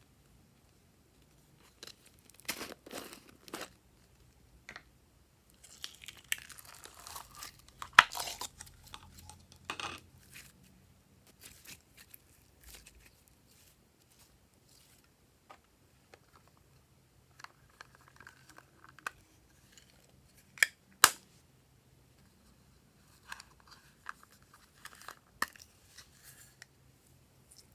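Glossy slime being squished and pulled by hand, making irregular sticky crackles, pops and clicks. The crackling is densest about a quarter of the way in, and two sharp pops come about three quarters of the way through.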